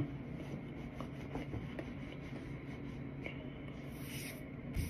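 Faint mouth sounds of chewing a mouthful of raw cornstarch, with scattered small clicks and a soft rub about four seconds in, then a low thump near the end.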